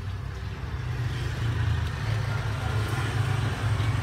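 Low, steady rumble of an idling engine, getting slightly louder toward the end.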